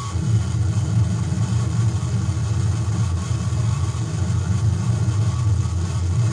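Harsh industrial noise played from a 7-inch vinyl record on a turntable: a steady, loud wall of heavily distorted low-pitched rumble with a hiss above it.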